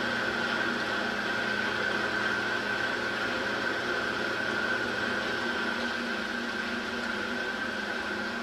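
Steady machine noise: an even hiss and hum with a constant high whine, one low hum tone dropping out about five and a half seconds in.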